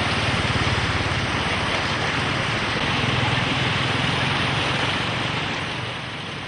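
An engine running steadily under a broad rushing noise, easing off slightly near the end.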